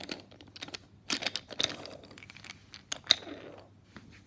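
Wooden toy engines being handled and set down on wooden toy train track: runs of small sharp clicks and clacks, with a louder clack about three seconds in.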